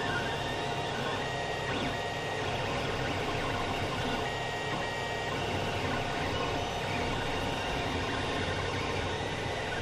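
Creality CR-10 3D printer printing: its fans run steadily while the stepper motors give short whining tones, each a fraction of a second, as the print head moves.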